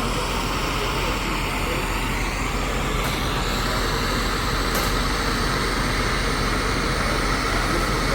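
Gas torch burning with a steady hissing rush, heating fluxed pipe.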